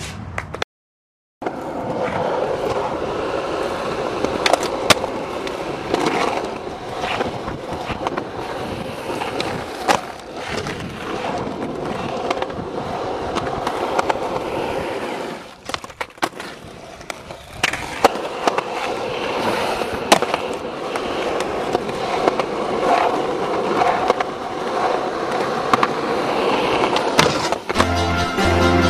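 Skateboard wheels rolling on concrete, with sharp clacks of tail pops, board flips and landings scattered throughout. It drops out to silence for a moment about a second in, and music with a steady beat comes in near the end.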